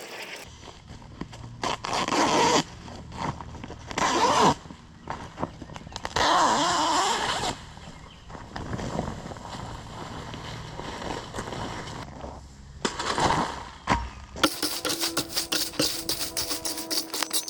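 Bursts of scraping and crunching as crushed stone is dug and moved, over a low steady hum. Music with a shaker-like rattle comes in about fourteen seconds in.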